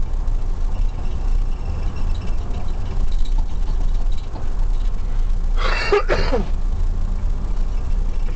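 Steady low rumble of a car's engine and road noise heard from inside the cabin while it drives. A brief, sharp, higher sound cuts in for about half a second just under six seconds in.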